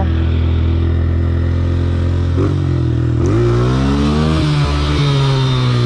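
Small dirt bike engine running while being ridden: steady at first, then revving up from about halfway through, with the pitch climbing, dropping briefly and climbing again as the throttle is worked.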